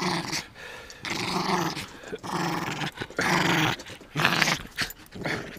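Yorkshire terrier growling: a string of short growls, about one a second, as it nips at a man's hand in rough play.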